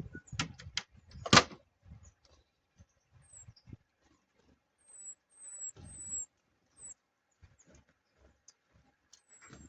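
Small garden birds at a feeder: thin, very high call notes, each a short downward slide, repeated several times. Sharp clicks and knocks come in the first second or so, the loudest about a second in, with scattered low thumps.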